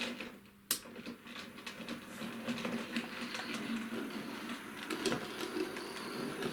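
Hornby Tornado model locomotive running on model railway track: a small electric motor whirring, with the wheels ticking over rail joints and points on a tight curve. A sharp click comes under a second in, then the running sound builds up and holds steady.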